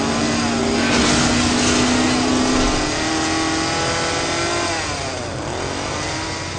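Car engine revving hard as the car accelerates away, its pitch climbing, dipping sharply about five seconds in, then rising again. A rushing noise runs under it.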